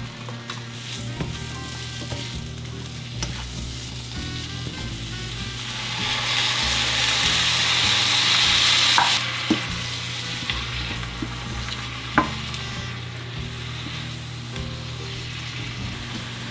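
Food sizzling in a hot frying pan as it is stirred, the sizzle swelling loudest about halfway through, with a few sharp clicks of a utensil against the pan. Soft background music underneath.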